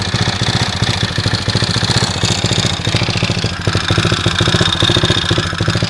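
Viper Active scooter engine idling steadily in rapid, even pulses, with the knock in the motor that the owner is asking about.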